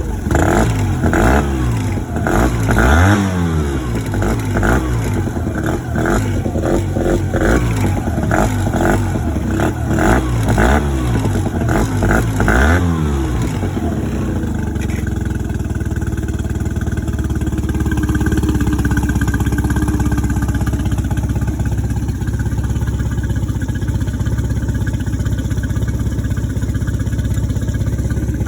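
Mercury 15 hp four-stroke outboard motor running, its pitch rising and falling over and over with knocks for about the first half, then running at a steady speed.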